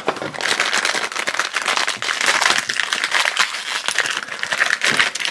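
Small plastic blind-bag wrapper being crinkled and torn open by hand, a dense crackling.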